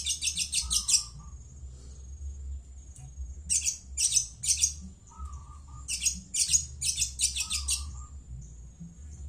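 Long-tailed shrike (cendet, Madura type) calling in rapid harsh, grating chatter, given in three bouts of a second or two each with pauses between, over a faint steady high whine and low hum.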